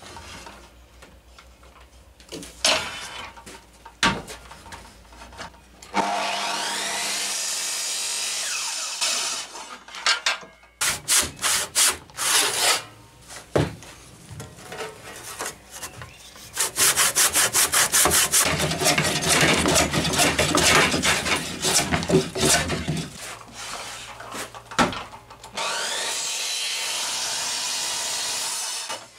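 A Makita circular beam saw cuts into an 8" x 8" oak beam in two steady runs of about three seconds each, one about six seconds in and one near the end. Between them a handsaw rasps through the oak in quick, even strokes.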